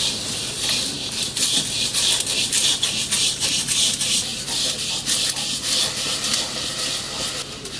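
Rice grains being dry-roasted for muri in a hot clay pot and stirred with a bundle of thin sticks: a steady dry hiss and rustle with fast fine crackling.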